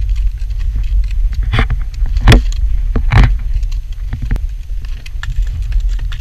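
Horse stepping down a snowy trail: a few sharp crunching hoof-steps, the loudest about two and three seconds in, over a heavy low rumble of wind and handling noise on a pole-mounted action camera.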